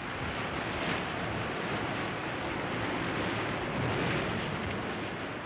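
Rough sea and storm wind: a steady rushing noise of wind and heavy surf, swelling and easing.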